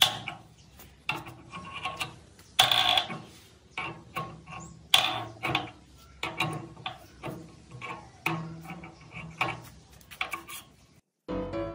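Irregular metallic knocks and clinks from meat mincer parts being handled and fitted together, some ringing briefly, with a few sharper knocks standing out.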